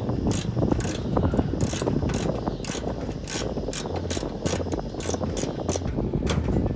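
Small hand ratchet with an extension clicking steadily, about two to three clicks a second, as it backs out small screws.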